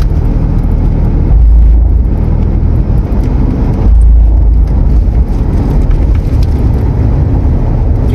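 Road and engine noise of a moving car heard from inside the cabin: a steady low rumble that swells briefly about a second and a half in and again about four seconds in.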